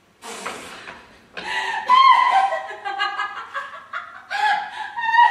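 A woman's breathy rush of air about a quarter second in, then high-pitched squealing giggles and laughter in short broken bursts.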